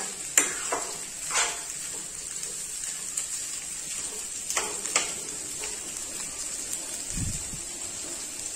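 A metal spoon scrapes and clinks against a non-stick kadhai as boiled potato pieces are stirred and sautéed, over a steady faint sizzle of frying. There are a few separate spoon clicks, and a dull low thump about seven seconds in.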